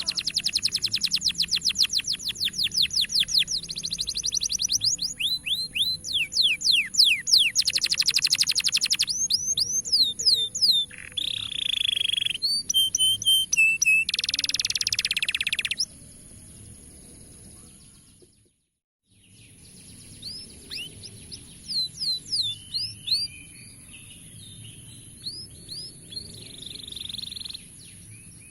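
Canary song: fast rolling trills and runs of falling whistled notes, loud through the first half. It drops out briefly about 18 seconds in, and quieter song follows.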